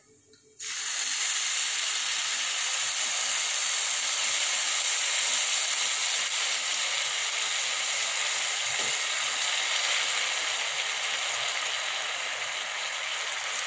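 Milk poured onto hot sugar in a nonstick frying pan on a gas burner, setting off a steady sizzle that starts suddenly about half a second in and eases a little near the end.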